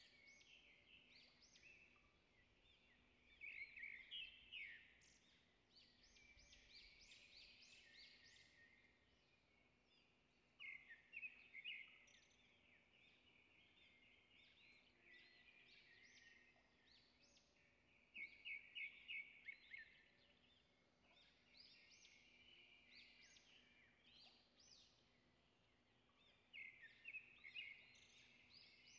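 Faint birdsong: bursts of quick, high chirps and trills about every seven or eight seconds, with softer chirping between them.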